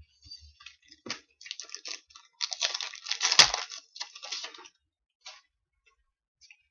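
Hockey card pack wrapper and cards being handled, crinkling and rustling in irregular bursts, with one sharp click about three and a half seconds in.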